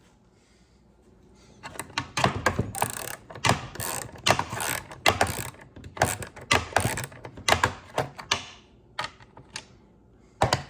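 Hand socket ratchet clicking in quick runs as bolts are worked loose, with a few single clicks near the end.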